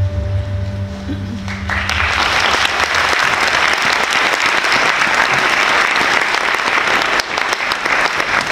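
Stage music ends in the first couple of seconds, and an audience breaks into sustained applause.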